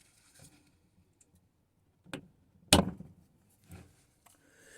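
Two sharp knocks about half a second apart, the second louder, from something hard being handled, followed by a softer thud.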